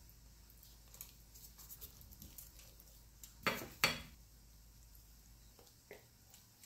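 Quiet kitchen handling noises: a spoon working thick spice paste in a bowl, with two sharp clinks close together about three and a half seconds in.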